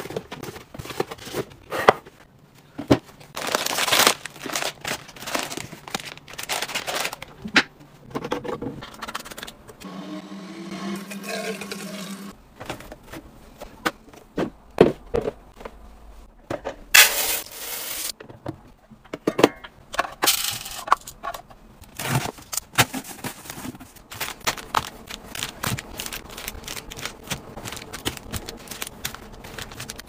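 Packaged goods being handled and set into plastic storage bins and onto shelves: crinkling wrappers, taps and scrapes in quick succession. A low hum runs for about two seconds near the middle.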